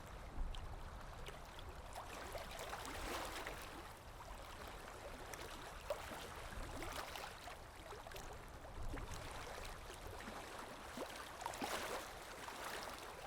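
Sea waves lapping and splashing, a continuous wash of water with a low rumble underneath, swelling a little every few seconds.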